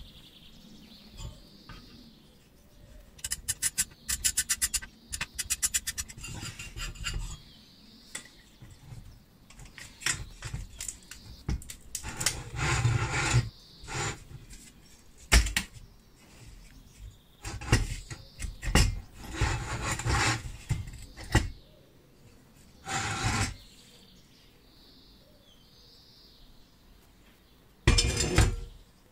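Metal parts of a rusty vintage camping stove being handled and pulled apart: rattling, scraping and clunking of the cooking ring and burner drum against the fuel tank, with a sharp knock about fifteen seconds in.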